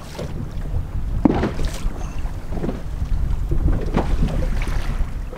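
Wind buffeting the microphone on a small boat at sea: a steady low rumble, with a few brief faint sounds now and then.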